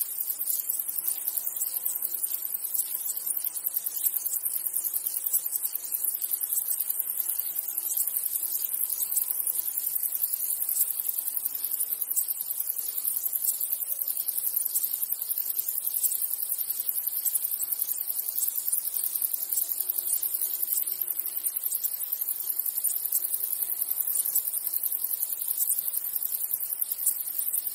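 A dense chorus of insects chirring: a steady, high-pitched, rapid pulsing.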